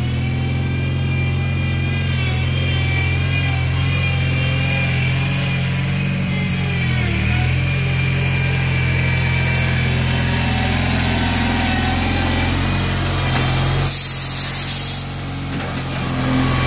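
Small tractor-loader-backhoe's engine running steadily, with a high whine above it. Its pitch dips briefly about seven seconds in. A short hiss comes near the end.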